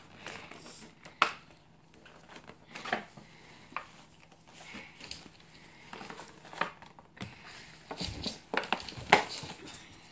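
Cardboard-and-plastic doll box being handled and pulled apart: irregular crinkles, rustles and sharp snaps of packaging, coming thicker and louder about eight to nine seconds in.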